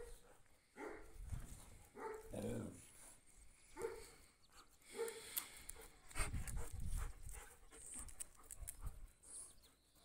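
Dogs at play making a few short, quiet yips and growls, scattered through the first half, with some low scuffling and rustling noise later on.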